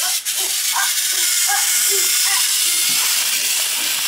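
Battery-powered Thomas & Friends toy engine running steadily as it pulls its wagons around a plastic track: a steady high-pitched whir from its small electric motor.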